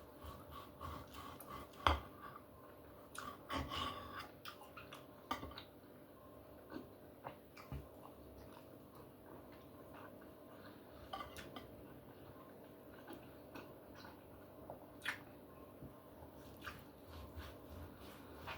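Cutlery clicking and scraping against a plate while a steak is cut and eaten: faint scattered light clicks, the sharpest about two seconds in.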